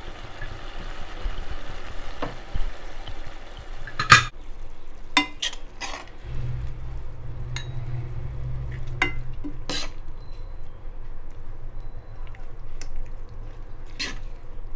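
A steel ladle scraping and stirring through thick soya chunk curry in a pan while the gravy sizzles, with about seven sharp clinks of the ladle against the pan and the serving bowl as it is scooped out.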